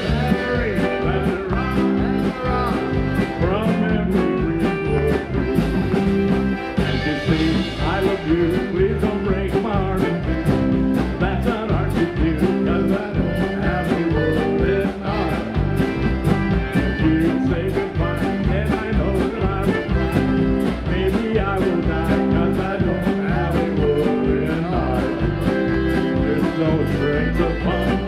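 Live Slovenian-style polka: a man singing over an accordion, with a band keeping a steady beat.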